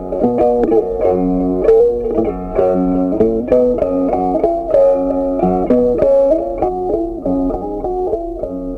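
Background music: a plucked-guitar tune, its notes struck at a regular pace.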